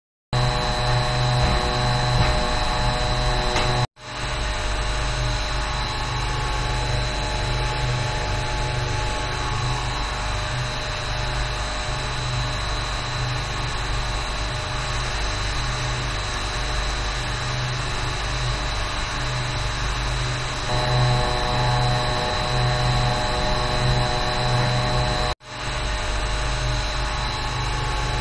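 Steady running noise of ship's engine-room machinery: a constant deep hum with a steady high whine on top. It breaks off for an instant twice.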